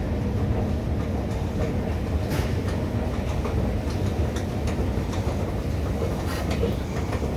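Long station escalator running under the rider: a steady low rumble and hum from the moving steps and drive, with a few faint clicks.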